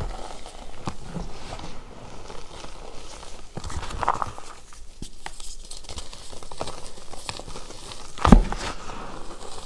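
Crumbled gym chalk reforms being scooped, squeezed and dropped by hand: a steady soft crunching and crackling as the chunks break up and the powder pours. A loud dull thump comes about eight seconds in, as a double handful lands in the powder.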